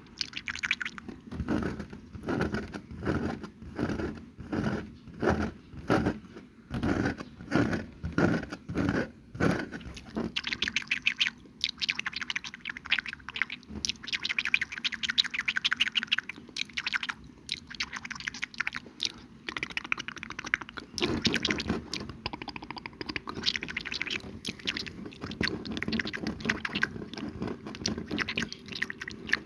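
Close-miked ASMR mouth sounds: rhythmic chewing-like strokes about twice a second for the first ten seconds or so, then dense fast crackling clicks.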